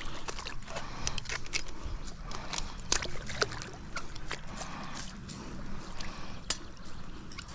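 Water trickling and dripping, with many small, sharp clicks and taps scattered throughout.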